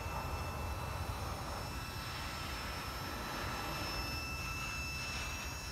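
Double-stack intermodal freight train rolling past: a steady low rumble of wheels on rail, with a thin, steady high-pitched whine over it.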